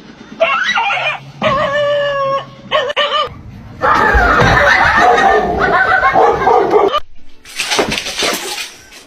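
A dog vocalising: a few short pitched yelps and whines, then a longer wavering cry about four seconds in, followed by a noisier, rougher stretch near the end.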